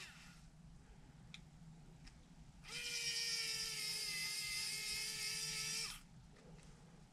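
Cordless electric screwdriver motor whining steadily for about three seconds while driving a screw, its pitch sagging slightly before it stops sharply. The screwdriver's battery has not been charged.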